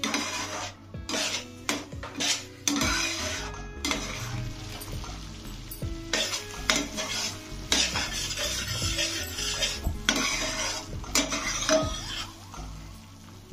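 Spoon stirring food in a hot pan while it sizzles, with repeated clinks and scrapes against the metal.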